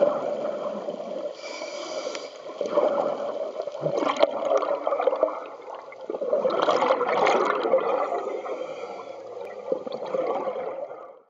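Scuba regulator breathing underwater: a brief hissing inhale, then long bursts of exhaust bubbles gurgling past, twice. The sound fades out just before the end.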